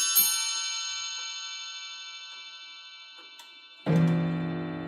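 Antique English grandfather clock chiming: a last hammer strike on its nested chime bells, then the bells ringing on and slowly fading, with the clock ticking faintly. About four seconds in, a single deep hour strike on its coiled wire gong that rings on.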